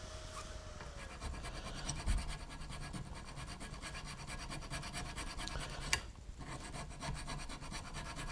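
Hand file rasping over a small shop-made knob in a cleanup pass. A faint steady hum dies away about a second in, and there is a single sharp click near the end.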